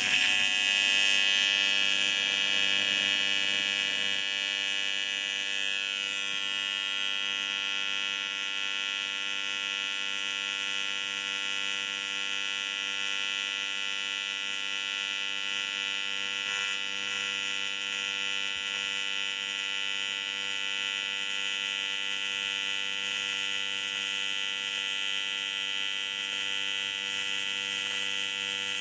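AC TIG welding arc on quarter-inch aluminum plate, from a Canaweld TIG AC/DC 201 Pulse D set to 100 Hz AC frequency: a steady, continuous electric buzz of the arc as the bead is run. It is a little louder for the first few seconds, then holds even.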